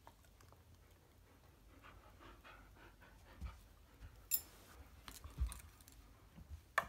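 Belgian Shepherd dog panting softly with its nose up against a kitten, with several sharp clicks and knocks in the second half, the loudest about four seconds in and just before the end.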